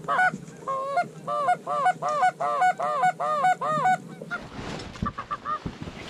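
A quick run of about a dozen loud goose honks, about three a second, each rising and falling in pitch, which stops about four seconds in. A few fainter honks follow near the end.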